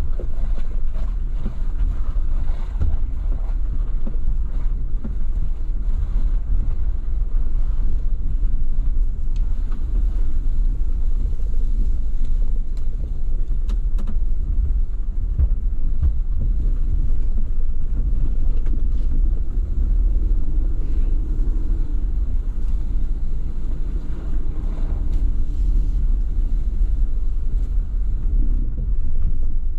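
Off-road vehicle driving: a steady low rumble of engine and tyres with wind buffeting the microphone. A little past the middle the engine note comes through more clearly, rising and falling for several seconds.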